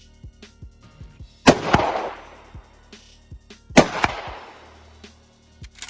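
Two shots from a DP-12 12-gauge double-barrel shotgun, a little over two seconds apart, each a sharp crack with a trailing echo.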